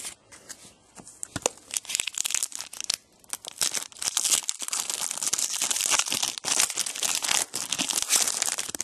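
Plastic trading-card pack wrapper being torn open and crinkled by hand: scattered crackles at first, then dense, continuous crinkling from about two seconds in.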